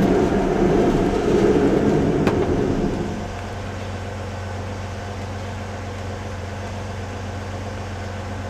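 Ultravan motorhome under way with a harsh grinding rumble from the front wheels, the edge of a brake drum rubbing on its backing plate. About three seconds in the rumble stops, leaving the Corvair air-cooled flat-six idling steadily.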